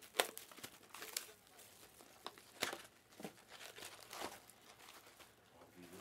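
Panini Prizm Fast Break trading-card pack wrappers being torn open and crinkled by hand: irregular sharp crackles, the loudest just after the start.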